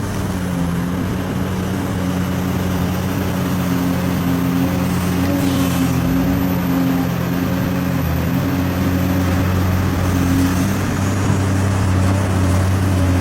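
A motor running steadily, with a constant hum and a hiss over it.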